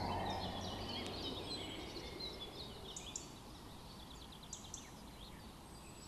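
Small birds chirping and trilling in short, high calls, while the tail of the background music fades away over the first couple of seconds.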